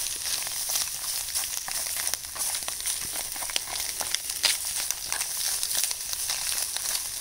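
Vegetables sizzling and crackling in an aluminium tray over a charcoal shichirin, a steady hiss with many small pops. They are frying without oil and beginning to scorch.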